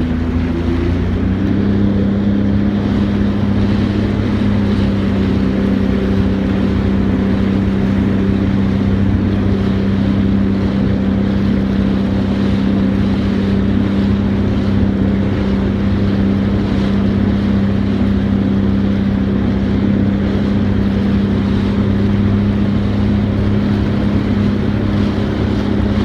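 Motorized watercraft engine running at a steady speed, a constant droning note that shifts about a second in and then holds, with wind and water rush.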